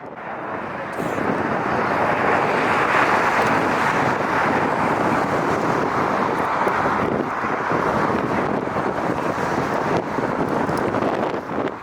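Jet airliner's engines heard as a steady rushing noise that swells about a second in, with wind buffeting the microphone.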